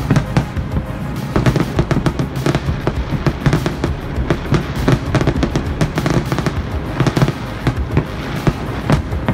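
Large fireworks display: a dense, unbroken stream of shell bursts and crackling, several bangs a second.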